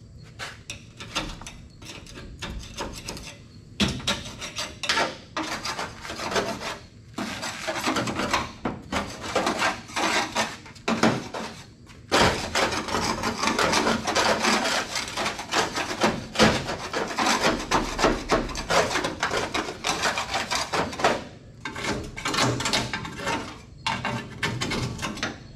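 Metal putty knife scraping old dirt-caked tar off the painted steel inner fender of a 1974 Ford Bronco, in quick irregular strokes. The strokes are sparse at first and become dense and almost continuous through the middle.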